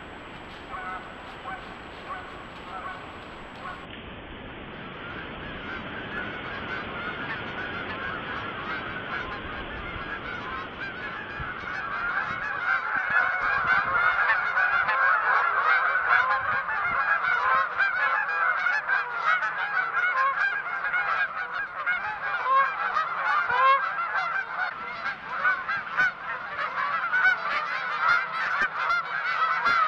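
A large flock of geese honking, many birds calling over one another; the calling grows louder and denser about twelve seconds in.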